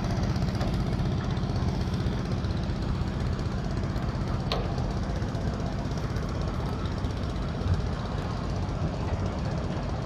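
A boat engine running steadily, with a fast, even knocking beat low in pitch. A single sharp click about halfway through.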